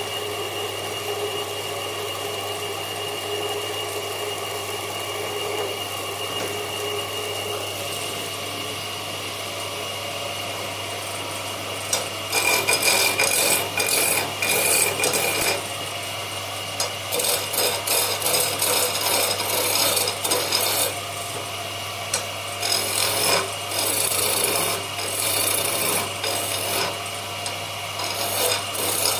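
Woodworking tools working wood: a steady machine hum, then from about twelve seconds in, repeated short bursts of scraping on wood that start and stop.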